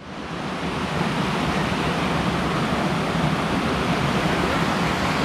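Steady rush of fast-flowing water, a river running below the trail, fading in over the first second and then holding even.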